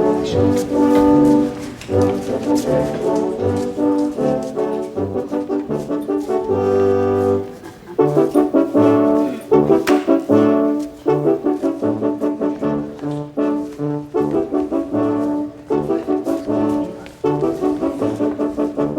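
Music without words: a rhythmic tune of held chords over a bouncing bass line, with a short pause about seven seconds in.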